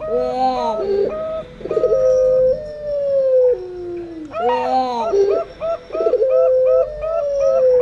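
Perkutut (zebra doves) and puter pelung doves cooing together in overlapping calls: long, smoothly falling coos mixed with quick runs of short repeated coo notes.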